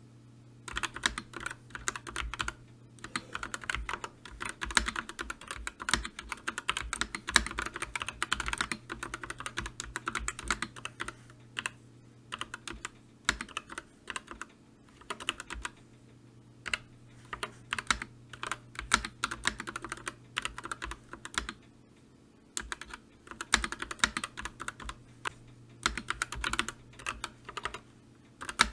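Typing on a computer keyboard: fast runs of key clicks broken by brief pauses. A faint steady low hum runs underneath.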